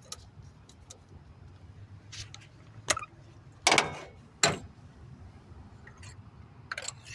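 Scattered metallic clicks and knocks as tools and spark plugs are handled on the Honda D16Z6 engine while the plugs are loosened and pulled. There are half a dozen or so separate knocks, the two loudest a little past the middle.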